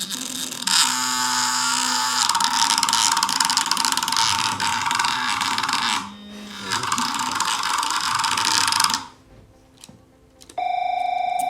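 Noise maker made from a tiny cell-phone-type vibration motor with an offset weight, buzzing loudly as it rattles a paper card against a cup: a harsh rattle in two long runs with a short break in between, stopping about nine seconds in. Near the end a steady pitched buzz starts.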